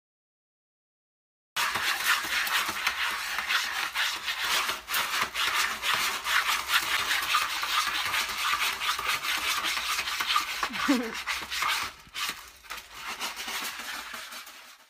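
A cat digging in a plastic litter box, its paws scraping the tray and scattering pellet litter in a rapid run of scratchy strokes. It starts about a second and a half in and grows a little quieter near the end.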